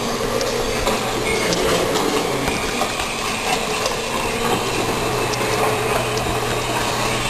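Steady indoor exhibit background noise: an even rushing hiss with a constant low hum underneath and a few faint ticks, typical of water and pump machinery in an animal enclosure.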